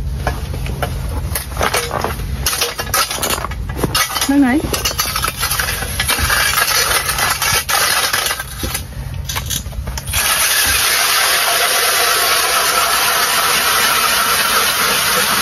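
Power ice auger: irregular knocks and scrapes for about ten seconds, then the motor starts and runs steadily as the auger bores into the ice.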